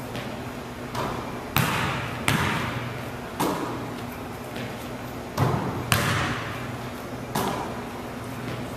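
A basketball thudding on a hardwood gym floor and being caught, about six sharp bounces spaced a second or so apart, each echoing in the hall.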